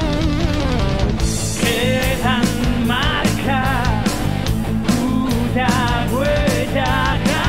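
Rock band playing electric guitars, bass and drums. About a second in, a male singer comes in with high, wavering held notes.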